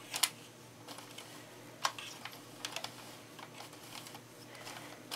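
Scattered light plastic clicks and taps from a Sentro 22-needle knitting machine as yarn is wrapped around its needles to cast on. Two clicks stand out, one about a quarter second in and one near two seconds in.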